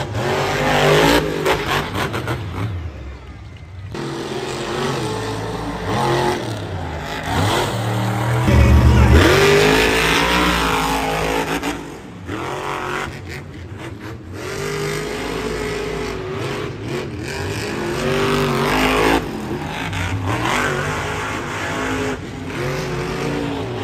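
Monster truck engines, supercharged V8s, revving hard and falling back again and again, with the pitch climbing and dropping. The loudest moment is a heavy low burst of throttle about nine seconds in.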